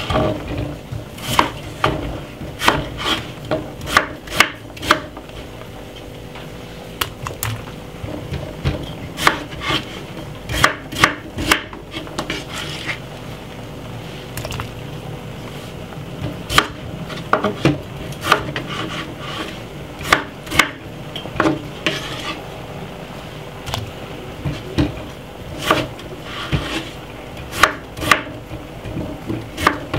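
Knife cutting a peeled potato into chunks on a wooden chopping board: irregular sharp knocks of the blade on the board, several a few seconds apart, mixed with scraping.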